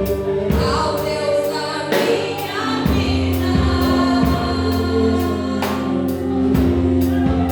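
Church worship team singing a gospel song, several voices together over a band with a steady drum beat and a held bass note.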